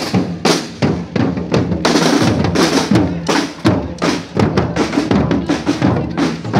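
Music with a drum kit beat, bass drum and snare strokes over a steady bass line.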